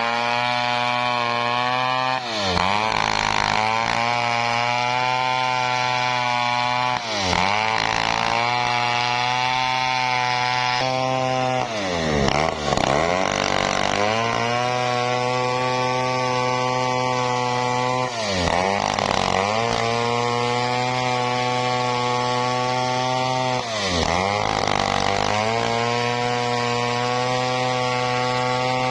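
Stihl 070 two-stroke chainsaw ripping lengthwise through a teak log, running at high revs. Its pitch briefly dips and recovers about every five seconds as it bogs under the load of the cut.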